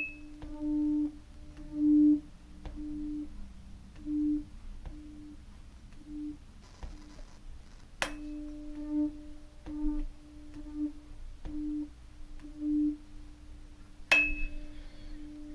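Tuning fork ringing with a steady low hum that swells and fades in repeated pulses, struck again about eight seconds in and near the end, each strike a sharp tap with a brief high ring.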